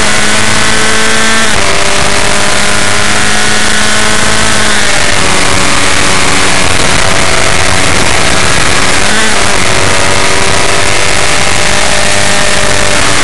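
Onboard sound of an F1600 formula car's four-cylinder racing engine under hard acceleration, heard over heavy wind rush. The engine note climbs, drops sharply at an upshift about a second and a half in, climbs again, and dips briefly about nine seconds in before rising once more.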